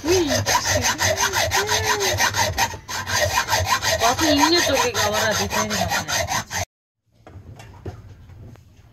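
Hacksaw cutting through a metal counterweight in fast, even back-and-forth strokes, the blade ringing with a wavering pitch. The sawing stops abruptly about six and a half seconds in, leaving only faint clicks.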